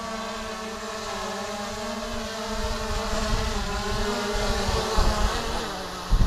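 Small quadcopter drone (DJI Mavic Air 2) hovering close by as it comes in to land, its propellers giving a steady, many-toned buzzing whine. Gusty rumbling from the rotor downwash on the microphone grows about halfway through. Near the end the whine drops, with a thump.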